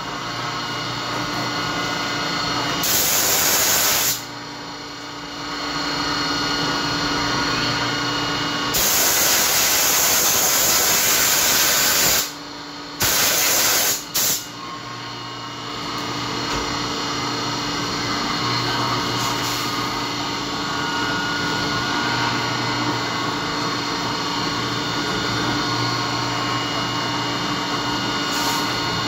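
CNC machining centre milling a keyway into a shaft with a flat end mill under flood coolant: a steady spindle and cutting whine with several steady tones. Coolant sprays with a loud hiss three times, the longest spell about three seconds, starting around 9 s in.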